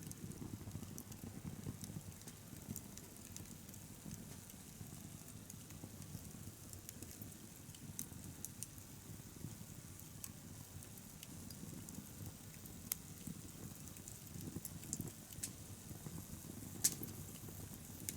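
Wood bonfire burning: a low steady rush under scattered sharp crackles and pops of burning wood, with one louder pop near the end.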